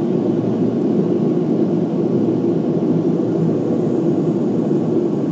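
Steady drone of a Widerøe Dash 8 turboprop's engines and propellers heard inside the cabin as the airliner rolls along the runway after touchdown, with no change in level.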